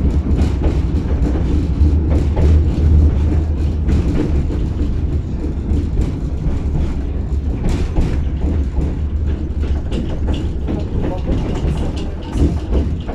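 Tatra T6B5 tram running between stops, heard from inside the car: a steady low rumble of wheels on rail, with irregular clicks and knocks from the track.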